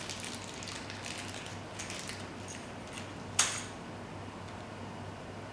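Small plastic parts and a plastic parts bag being handled by hand: faint rustling and light ticks, with one sharp click about three and a half seconds in. A faint steady hum runs underneath.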